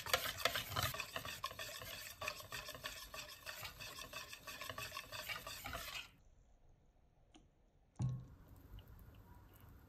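Wire whisk beating thick batter in a ceramic bowl: a fast, scratchy stirring that stops suddenly about six seconds in. After two seconds of near silence comes a single knock, then faint handling ticks.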